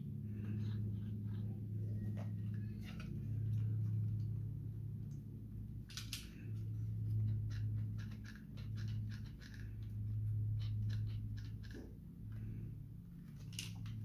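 Scattered light plastic clicks and taps as a Roomba s9's plastic cleaning head module is handled and turned over, over a low steady hum that swells and fades.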